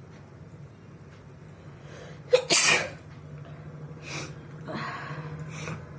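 A person sneezes once, loudly, about two and a half seconds in. The sneeze is brought on by tickling the inside of the nose with a twist of paper, and it is followed by quieter breathing.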